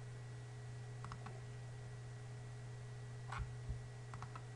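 A few faint computer mouse clicks, scattered singly and in small pairs, over a steady low hum.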